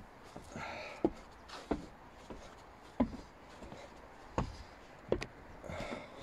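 Footsteps climbing wooden stairs and stepping out onto a bitumen-felted roof: about six separate thuds, unevenly spaced, with faint rustling between them.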